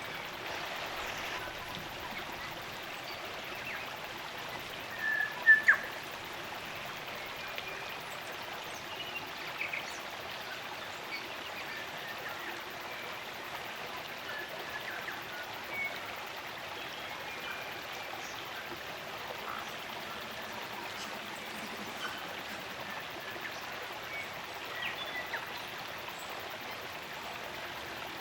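Stream of running water, steady throughout, with short bird calls scattered over it; the loudest is a pair of sharp notes about five seconds in.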